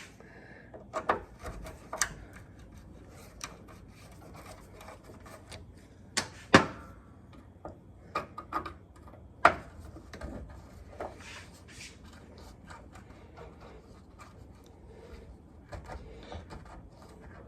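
Scattered clicks, taps and scraping of hand tools working on a seized Dodge M37 windshield frame, with sharper knocks about six and a half and nine and a half seconds in.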